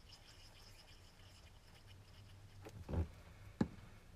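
Quiet handling of card circles and a plastic squeeze glue bottle on a cutting mat, then two light knocks near the end, a dull one followed by a sharper one, as the glue bottle is set down on the mat.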